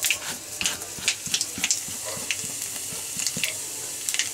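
Mustard, cumin and carom seeds sizzling in hot mustard oil in a kadhai, a steady hiss with frequent sharp pops as the seeds splutter: the tempering (tadka) stage.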